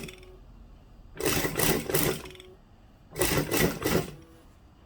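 Domestic sewing machine stitching a hem in two short bursts of about a second each, stopping briefly between them.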